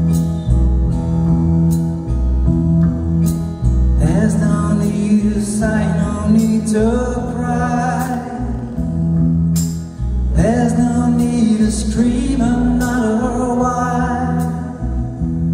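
A live band plays strummed acoustic guitar over bass, drums and keyboards. About four seconds in, singing comes in over the band and carries on to near the end, with a short break around ten seconds.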